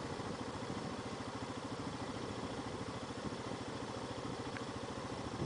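A vehicle engine idling steadily, with an even, rapid low pulse.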